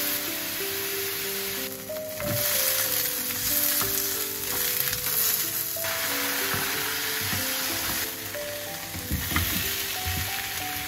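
Salmon fillet and green beans sizzling in oil in a nonstick frying pan. The sizzle thins briefly twice, and wooden utensils knock in the pan a few times near the end.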